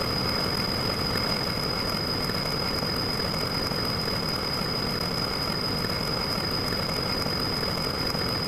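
Steady, unchanging engine-like rumble with a constant high-pitched whine over it, held at one loudness throughout.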